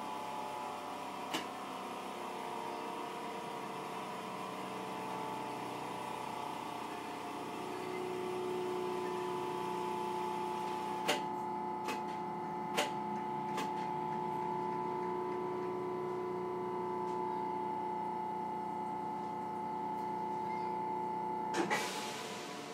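Hiroden 3900-series tram running, heard from inside the car: its Toyo Denki SiC VVVF inverter gives steady electric tones over the motor and running noise, growing a little louder after several seconds. A few sharp clicks come about halfway, and a short burst of noise near the end.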